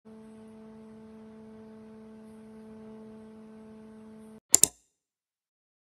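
A steady, even hum with a fixed pitch that cuts off abruptly, followed by a sharp double click.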